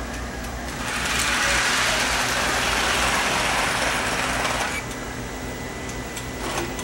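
Electric O-gauge toy trains and accessories running on a layout: a steady low electrical hum, with a louder noisy mechanical rush for about four seconds in the middle.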